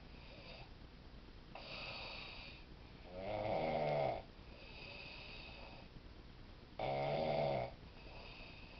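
A man snoring in his sleep: two loud snores, the first about three seconds in and the second about three and a half seconds later, with quieter breaths between them.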